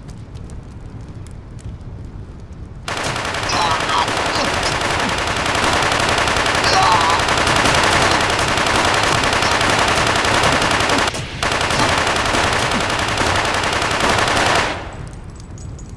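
Sustained automatic fire from MAC-10 submachine guns in a film gunfight's sound mix. It starts about three seconds in and keeps up almost without pause, with one short break near eleven seconds. It stops shortly before the end.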